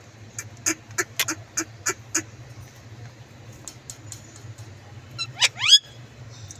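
Rose-ringed (Indian ringneck) parakeet calling: a quick run of short, sharp chirps in the first two seconds, then two fast rising squawks about five seconds in. A steady low hum runs underneath.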